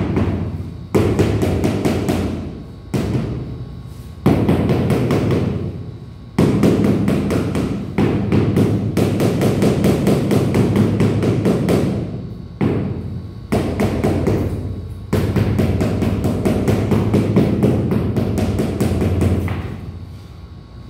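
Rubber mallet tapping a large 80 × 80 cm ceramic floor tile down into its mortar bed to seat it level, in quick runs of taps broken by short pauses.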